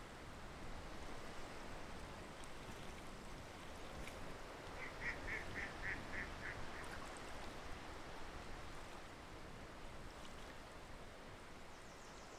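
A waterfowl calling about five seconds in, a quick run of about seven high notes at roughly four a second, over a steady background hiss.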